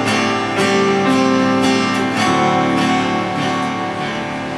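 Live acoustic guitar strumming chords in an instrumental passage with no singing, the strokes coming roughly twice a second.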